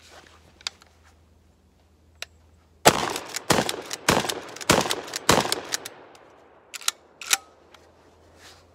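Dickinson Commando 12-gauge shotgun fired five times in quick succession, about 0.6 s apart, starting about three seconds in, each blast trailing off with an echo. A few sharp clicks follow near the end.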